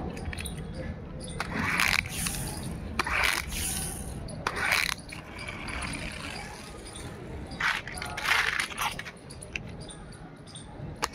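Small die-cast pull-back toy cars' wheels rasping on rough concrete as they are drawn back to wind their spring motors and let go to roll off, in about five short scraping bursts.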